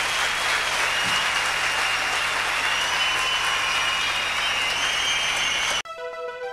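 Large audience applauding steadily, cut off suddenly near the end by electronic music.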